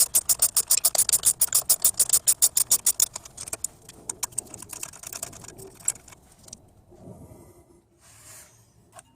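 Pass-through ratchet wrench clicking rapidly and evenly as it loosens a strut stem nut. The clicks slow and thin out about three seconds in and die away by about six seconds.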